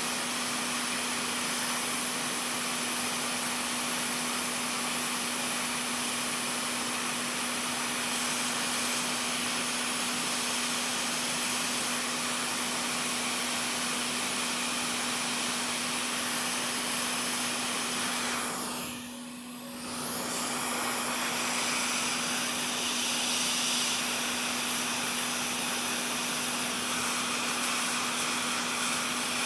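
Steady rushing air noise of a small electric blower with a constant hum, dipping briefly about two-thirds of the way through.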